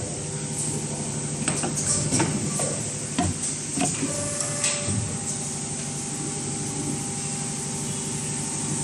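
Full-automatic PET bottle blow moulding machine running: a steady hum, with a string of sharp clicks and knocks and short hisses of air between about one and a half and five seconds in.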